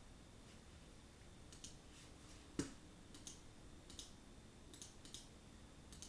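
Scattered faint clicks of a computer mouse, six or so spread irregularly, with one louder knock about two and a half seconds in, over quiet room tone.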